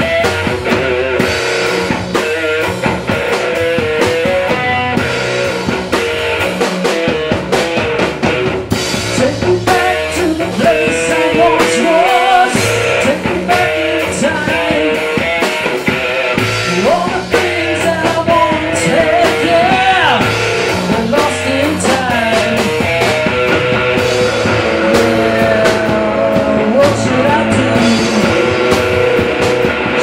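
Live rock band playing loud, with electric guitars and a drum kit.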